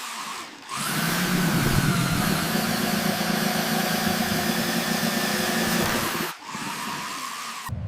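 Radio-controlled construction machine running steadily with a motor or engine-like drone, broken by abrupt edit cuts about a second in and near the end.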